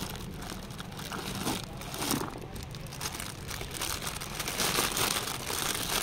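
Plastic packaging crinkling as bubble wrap and a clear plastic bag are handled and unwrapped, in irregular rustling bursts, loudest about five seconds in.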